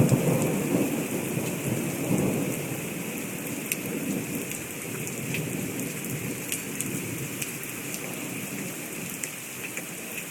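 Thunder rumbling and dying away over the first few seconds, with a brief swell about two seconds in. Steady rain continues beneath it, with scattered sharp drips.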